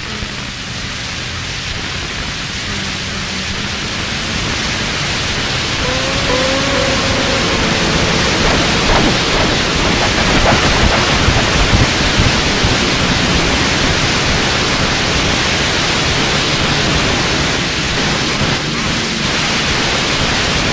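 Turntable noise improvisation played through a DJ mixer: a dense wash of hiss-like noise that swells over the first several seconds, with brief warbling tones about six seconds in and a few clicks around nine to ten seconds, over a low steady hum.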